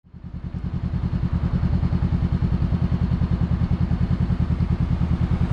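Motorcycle engine idling with a rapid, even pulsing beat, fading in over the first second.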